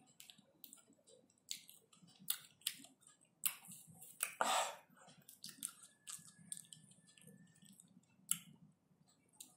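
Close-miked mouth sounds of someone eating ice cream from a small cup with a wooden stick spoon: irregular sharp clicks and smacks, with one longer, louder noise about four and a half seconds in.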